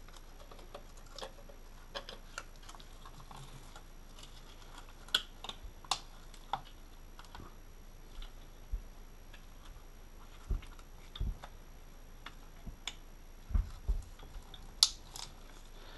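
Irregular clicks and light knocks of hard plastic as an ignition coil pack and its connector are handled and fitted into a 1.8T engine, with a few low thuds late on and one sharp click near the end.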